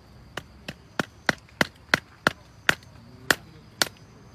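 A run of about ten sharp chopping knocks, unevenly spaced at roughly three a second.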